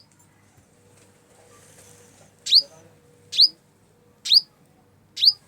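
A small bird calling: four sharp, high chirps, each sliding down in pitch, just under a second apart, starting about two and a half seconds in.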